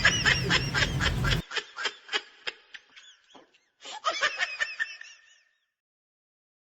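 Young cockatiels chirping in quick, repeated high calls. The background cuts off abruptly about a second and a half in, and a second snicker-like run of high chirps follows around four to five seconds in before silence.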